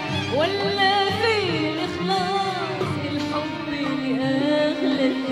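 A woman singing an Arabic pop song live, drawing out a long ornamented phrase whose pitch sweeps up and down, over an Arabic orchestra.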